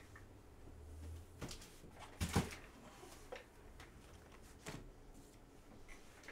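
Faint clicks and knocks of small objects being handled, the loudest a quick cluster of knocks a little over two seconds in and another sharp knock near the end.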